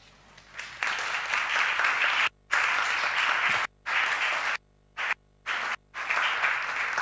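Audience applauding, starting about a second in. The sound cuts out to silence for brief moments several times.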